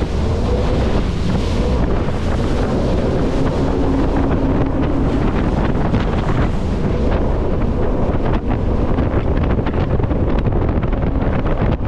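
Jet boat running fast on a shallow river: heavy wind buffeting on the microphone over the rush of water and the steady drone of the boat's engine.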